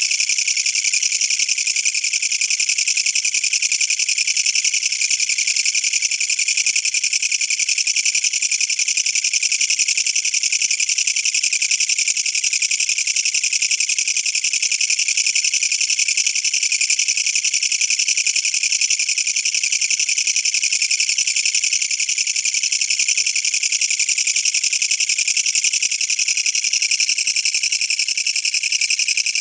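Japanese katydid (kutsuwamushi, Mecopoda niponensis) stridulating at close range: a loud, steady, high-pitched buzz.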